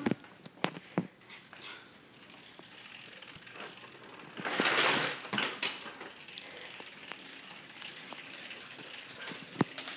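Household handling and movement noises: scattered sharp clicks and knocks, with a louder brief scraping rustle about halfway through.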